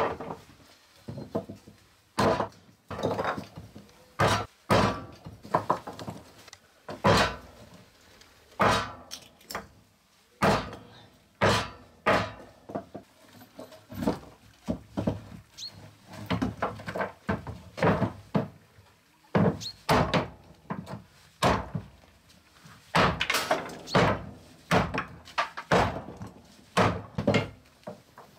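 Hatchet chopping small wooden blocks on a wooden workbench: irregular sharp thunks about once a second, often in quick pairs.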